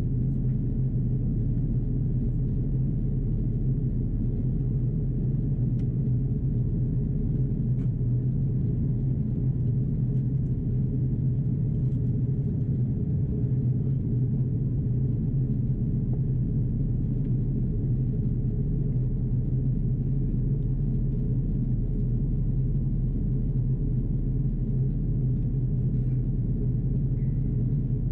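Steady low drone of an Airbus A330-343 in descent, heard inside the passenger cabin: the hum of its Rolls-Royce Trent 700 engines mixed with the rush of air over the fuselage, with no change in level.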